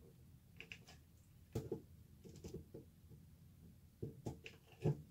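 Faint, scattered clicks and light knocks from a hot glue gun and twigs being handled inside a clear plastic enclosure while the sticks are glued together, the loudest knock near the end.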